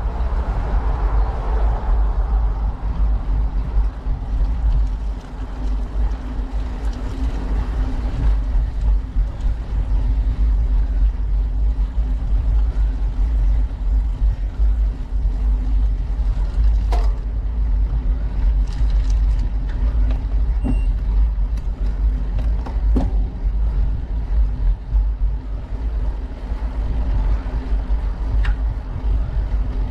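Steady heavy low rumble of wind and road noise on a moving, vehicle-mounted action camera, with a constant hum underneath and a few sharp clicks or knocks around the middle.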